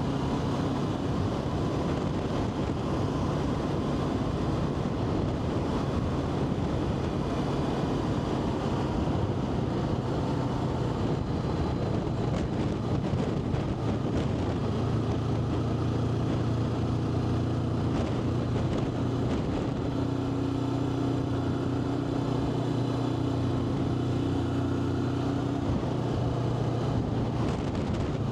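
Adventure motorcycle engine running steadily while riding, with wind and road noise over it; the engine note shifts a little in the second half as speed changes.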